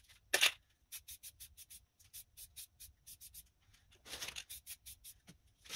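White aerosol spray paint can, sprayed in short bursts: a run of quick hisses, three or four a second, with a denser cluster of slightly longer hisses about four seconds in. It is dusting a light coat of white over the masking-tape edges to seal them before the blue goes on.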